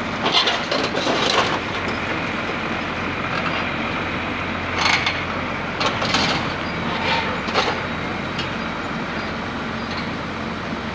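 Wheel loader's diesel engine running steadily as it tows a broken-down dump truck on a rigid tow bar, with a series of knocks and clanks, a cluster near the start and another, the loudest, about five to seven and a half seconds in.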